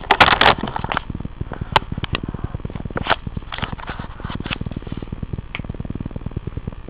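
Rustling handling noise as the handheld camera is moved and set down. It is followed by a fast, steady crackling tick with a few sharper clicks.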